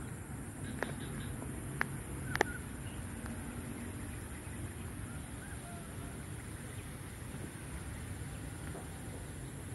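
Outdoor ambience: a steady low rumble, with three sharp clicks in the first two and a half seconds.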